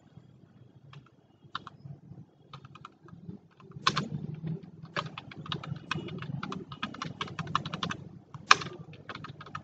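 Typing on a computer keyboard: a few scattered keystrokes, then a quick run of keystrokes from about four seconds in, with one louder keystroke near the end.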